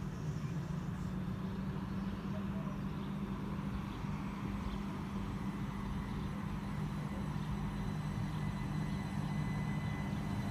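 Southern Class 377 Electrostar electric train approaching along the platform: a steady low hum over a rumble, growing slightly louder near the end.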